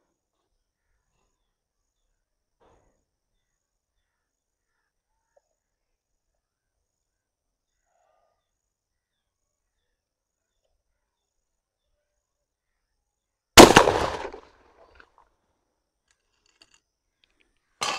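Single 12-bore shotgun shot from a Tula over-under, an SG buckshot load fired through the full-choke upper barrel: a sharp report that dies away over about a second. A shorter, quieter clack comes near the end.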